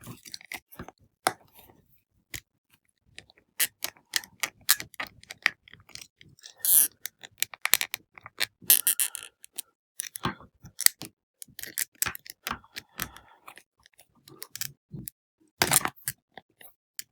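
Plastic action figure being handled, with irregular sharp clicks and brief rustles as its stiff, new joints and detachable hands are worked at.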